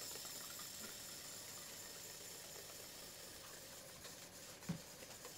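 Faint steady hiss of background noise with no clear mechanical rhythm, and one short soft knock about four and a half seconds in.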